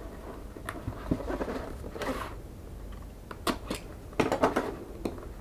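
A cardboard product box being handled and turned over on a workbench: scattered light taps and knocks, with a short scrape about two seconds in and a few sharper clicks near the end.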